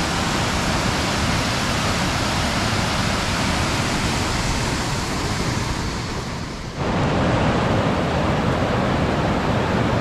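High Falls of the Baptism River: a loud, steady rush of falling water. It sags slightly and then comes back up abruptly about seven seconds in.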